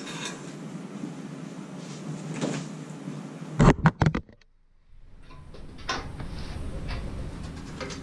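Handling noise: a moving blanket being pulled out with light rustling, then a quick run of sharp knocks about three and a half seconds in as the camera is picked up and moved, a brief dropout to near silence, and afterwards a low rumble with a few scattered clicks.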